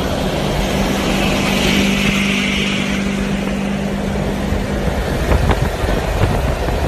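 Old race-prepped American muscle car driving at highway speed alongside. Its engine gives a steady drone that drops away about five seconds in, over road and wind noise on the microphone, with a few short knocks near the end.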